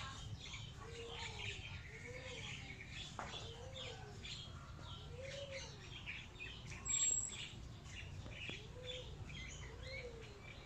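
Birdsong: several birds chirping, with a low call that rises and falls in pitch, repeated every second or two, and a brief sharp high note about seven seconds in.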